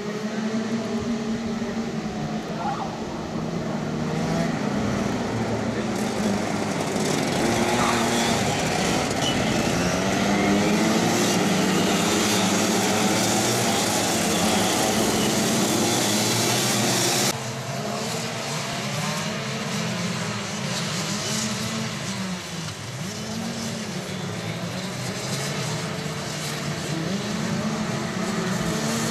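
Several Rotax DD2 125 cc two-stroke kart engines running, their pitch rising and falling with the throttle. About 17 seconds in the sound changes abruptly to a quieter, lower mix of engines revving up and down.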